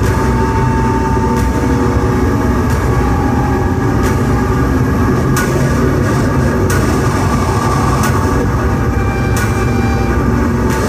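Loud electronic noise music from a laptop and synth rig: a dense, steady low rumble with a sharp click repeating about every second and a third.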